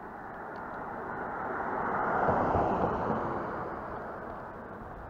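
A car driving past, its engine and tyre noise swelling to a peak about halfway through and then fading away.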